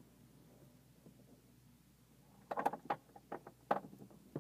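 Glider cockpit handling noise: near quiet at first, then a cluster of short knocks and clicks starting about two and a half seconds in.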